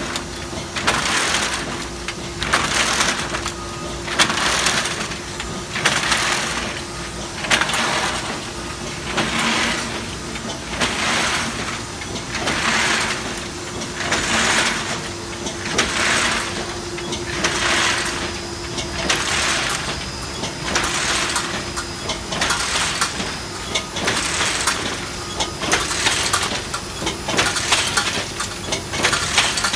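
1978 Bobst SP 1260 E platen die cutter running: a loud mechanical clatter and hiss repeating evenly about every 1.7 seconds, one burst per machine cycle, over a steady hum.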